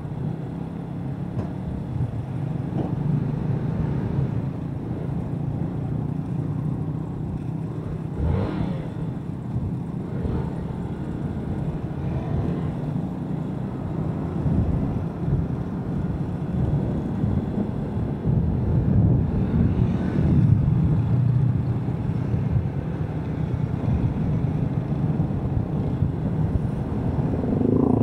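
Onboard sound of a Yamaha SZ motorcycle riding along a road: its single-cylinder engine running steadily under road and wind noise, with a few brief swells from passing traffic.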